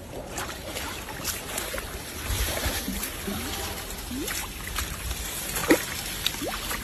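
Water splashing and sloshing, with scattered clicks and knocks and a sharper splash or knock near the end.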